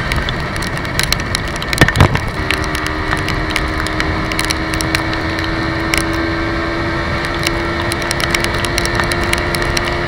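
Yamaha motor scooter riding at speed, its engine running steadily, with wind noise on the camera microphone and scattered crackles. Two heavy thumps come about two seconds in, after which the engine holds a steady tone.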